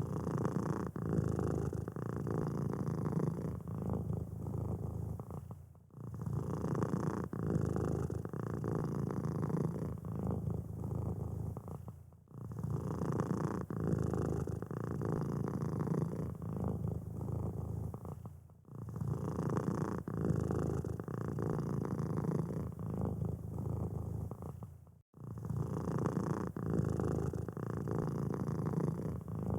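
Domestic cat purring steadily and close up. The same stretch of about six seconds repeats, with a brief drop in level between each repeat.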